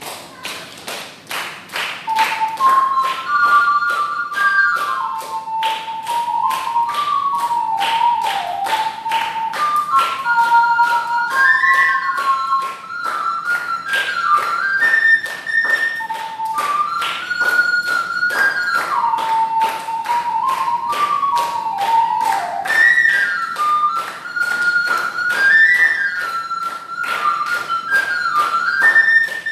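Triple ocarina playing a lively, leaping melody, with hand claps keeping a steady beat under it.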